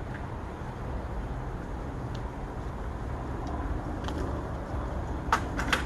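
Steady low rumble of city traffic, with a few sharp clicks about five and a half seconds in.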